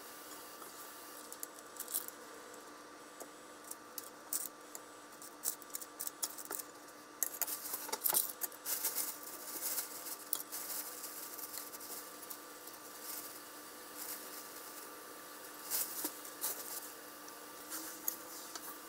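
Light kitchen handling sounds from packing a lunch box: soft clicks of food and chopsticks against a stainless steel lunch box and the crinkle of a plastic bag, busiest about a third of the way through. A faint steady hum runs underneath.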